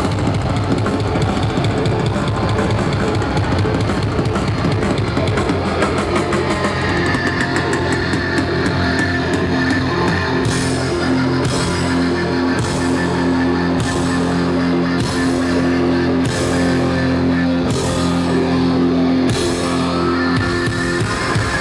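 Rock band playing live at full volume: distorted electric guitars and drums. From about six seconds in the band holds a ringing chord while drum hits fall about once a second, and the low chord cuts off near the end.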